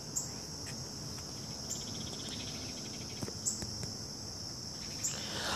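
A steady, high-pitched chorus of insects, such as crickets, chirring without a break.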